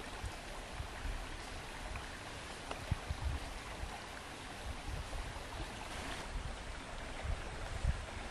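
Shallow stream running over stones, a steady rush and burble of water.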